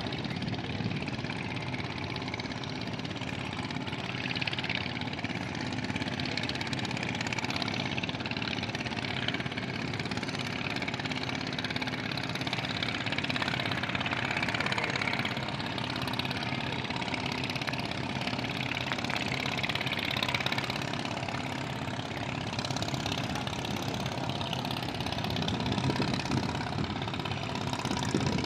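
Speedboat engine running steadily while the boat is underway at speed, with a constant rushing noise over it.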